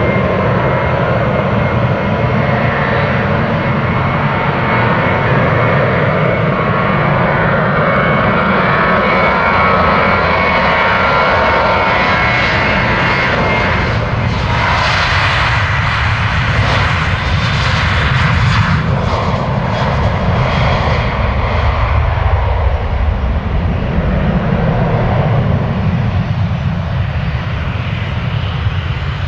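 Ryanair Boeing 737 taking off at full thrust: steady jet engine noise with a whining fan tone at first, turning brighter and hissier as it rolls past about fourteen seconds in, then settling into a deeper rumble as it climbs away.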